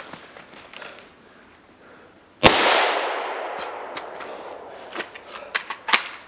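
A single rifle shot about two and a half seconds in, its echo rolling off over a couple of seconds, followed by a few small sharp clicks near the end.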